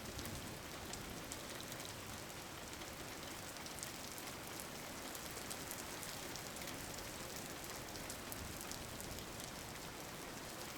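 Steady rain falling on a surface, an even hiss with many small drop ticks.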